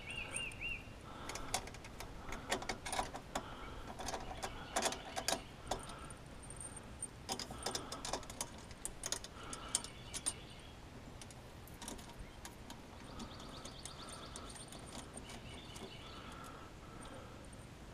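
Small metal bolts and hardware clicking and clinking in the hands and against the aluminium cart frame as parts are fitted, in clusters of sharp taps through the first half. Birds chirp in short bursts in the background, more clearly in the second half.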